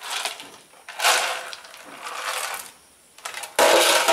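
A clear plastic snack jar being handled by a small child, rattling and scraping on a concrete floor in several short bursts, the loudest near the end.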